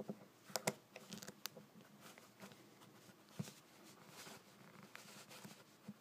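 Faint clicks and scrapes of a lock-picking tool working in an IKH BW015 brass padlock. A cluster of sharp clicks comes about half a second in, more follow a second later, one near the middle, with light scraping in between.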